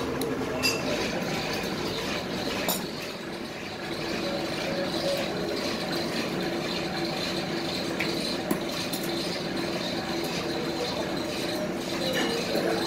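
Rubber extruder running steadily in the workshop: a constant mechanical hum with a few faint steady tones, broken by a few sharp clicks.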